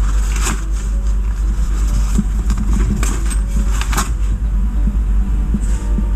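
A few light metallic clicks of steel bolts being handled and set into the holes of an engine side cover, over a steady low hum.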